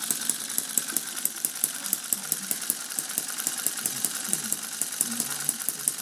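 Bob Shores-designed Little Angel model hit-and-miss engine, a tiny single-cylinder spark-ignition engine of half-inch bore, running steadily on lamp oil with its governor disconnected, so it fires on every cycle. It makes a fast, even train of sharp pops, several a second.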